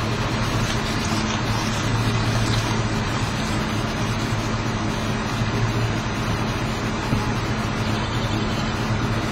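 A steady low engine hum with a constant rushing noise over it.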